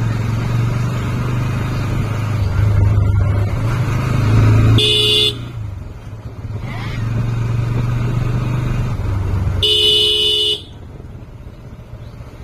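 Motorcycle engine running at low speed with a steady low hum, and a motorcycle horn honked twice: a short beep about five seconds in and a longer one about ten seconds in. The engine goes quieter just after each honk.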